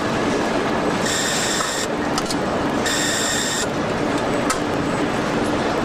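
Car assembly plant floor noise: a steady machinery hum and hiss, with two electronic warning beeps, each just under a second long and about two seconds apart, and a few sharp clicks.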